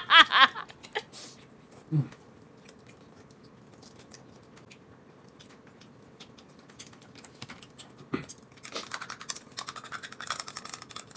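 A short laugh at the start, then scattered light clicks of chopsticks and tableware. From about eight seconds in comes a busy run of scratchy scraping and tapping as chili sauce is scraped out of a small tin onto a plate with chopsticks.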